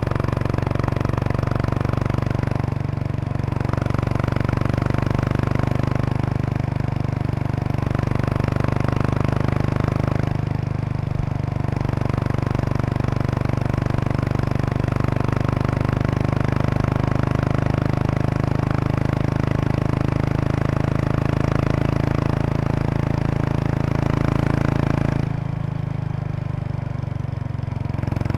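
Exhaust note of a 2003 Kawasaki Estrella RS, a single-cylinder motorcycle with an aftermarket Yamato muffler, heard while riding at a steady pace. The note softens briefly twice and again for a few seconds near the end, as the throttle is eased off.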